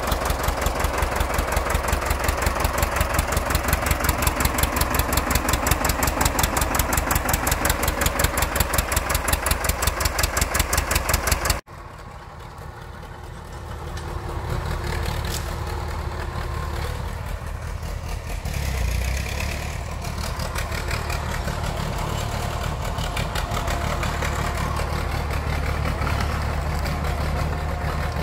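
An engine running with an even, rapid pulsing beat for about eleven seconds, then a cut to a different, lower engine drone that builds over the following few seconds and runs on steadily.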